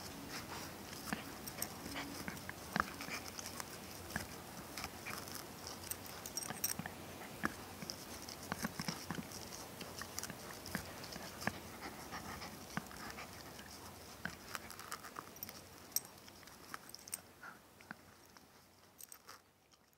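A Shiba Inu–Schipperke mix puppy chewing a tennis ball close up: teeth on the felt-covered rubber give irregular clicks and crunches. The chewing gets quieter and trails off near the end.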